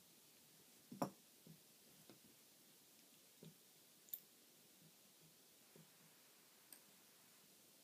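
Faint, scattered metallic clicks and taps from a brass Yale half euro cylinder lock and a flat follower tool being handled as the lock is taken apart, with the sharpest click about a second in. Between the clicks it is near silence.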